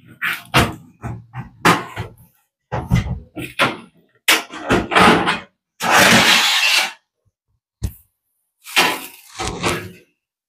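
Sheet-metal oven toaster being handled on a bench: a string of knocks and thuds as it is turned over and set down, with a scrape of about a second, about six seconds in, as its metal outer cover is slid off.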